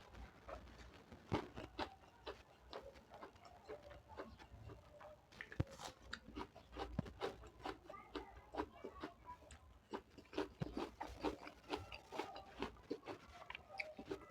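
Close-up chewing and mouth sounds of someone eating dal and rice: many short, irregular wet clicks and smacks, several a second.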